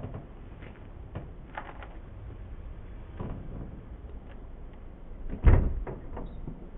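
Old wooden door being worked by hand at its lock: scattered clicks and rattles of the metal fittings, then one heavy thump about five and a half seconds in as the door is shoved.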